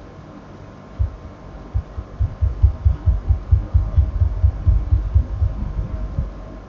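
Repeated clicking of a computer mouse, heard as a run of soft low thumps, about four or five a second, starting about a second in and dying away near the end.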